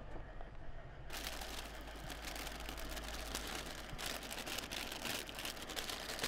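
Corn puff sticks poured from a plastic snack bag onto concrete: bag rustling and many light clicks of the puffs landing, starting about a second in, over a low steady hum.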